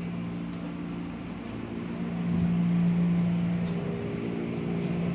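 KRL electric commuter train giving a steady low electrical hum. It grows louder about two seconds in, and a higher steady tone joins it about three and a half seconds in.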